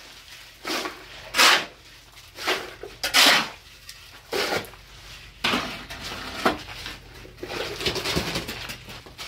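Steel shovel scraping up concrete mix off a cement floor and tipping it into a bucket, a rough scrape with each scoop, roughly one a second, then softer rustling near the end.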